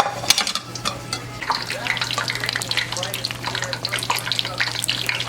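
Food deep frying in hot oil: a dense, irregular crackling and popping that starts suddenly and keeps going.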